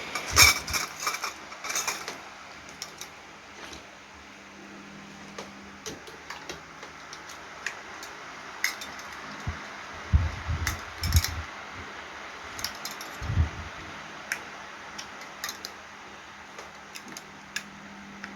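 Clicks, clatter and knocks of shoe rack parts being handled and fitted together during assembly, busiest at the start, with a few dull knocks about halfway through. A steady low hum runs underneath.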